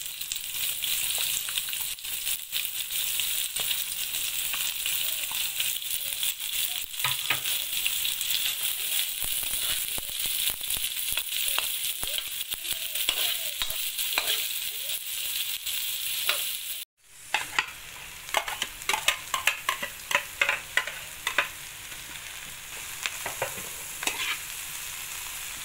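Garlic, onion and leek sizzling in hot oil in a wok, with a metal spatula scraping and clicking against the pan as they are stir-fried. About two-thirds of the way through, the sound drops out for a moment. After that comes a run of sharp clicks and knocks.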